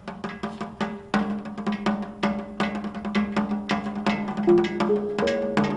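Music: a quick, steady drum and percussion beat over a held low note, with a melody of pitched notes coming in near the end.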